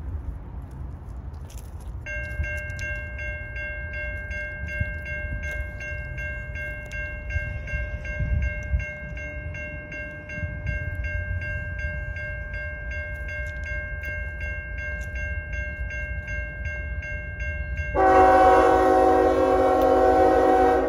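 Grade-crossing warning bell ringing in a steady, rapid rhythm from about two seconds in. Near the end, an approaching diesel locomotive's horn blows loudly for the crossing, drowning out the bell.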